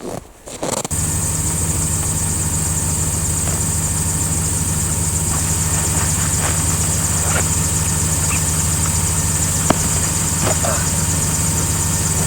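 An engine idling steadily. It starts suddenly about a second in and runs evenly, with a few faint ticks over it.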